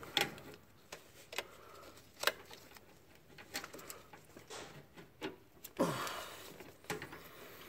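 Scattered light clicks and taps of metal brake lines and fittings being handled and bent by hand at the proportioning valve, with about a dozen short knocks and one louder knock about six seconds in.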